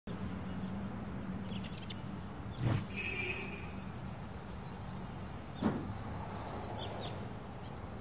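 Online slot game's idle background sound: a steady hiss and hum with faint, short bird chirps. Two sharp clicks come about three seconds apart, as the game's paytable card opens and closes.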